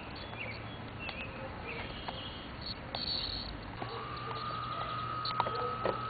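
A cicada calling: one steady, even-pitched call starts a little past halfway and holds to the end. Birds chirp briefly and sporadically around it.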